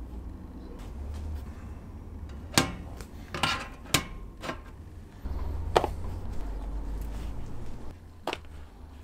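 Kydex sheet and a tape-wrapped knife being handled on a griddle and bench: a handful of sharp clicks and light knocks, a couple in quick clusters, with a low rumble from about five to eight seconds in.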